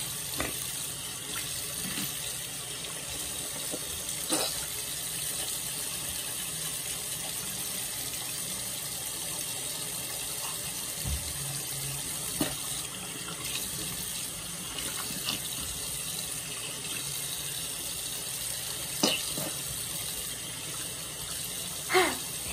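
Bathroom sink faucet running steadily into the basin, with a few short clicks and knocks, the loudest near the end.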